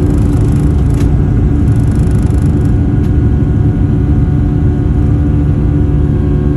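Boeing 757 jet engines at takeoff power: a loud, steady rumble with steady engine tones running through it.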